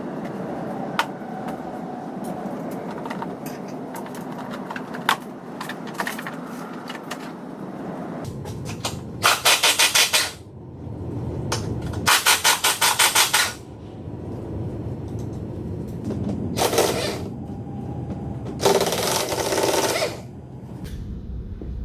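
Impact wrench run in four short bursts of rapid hammering, with clinks of metal tools and parts between the bursts.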